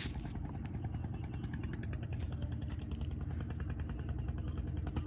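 A small engine running steadily at an even speed, a low hum with a fast regular beat. A single sharp click right at the start.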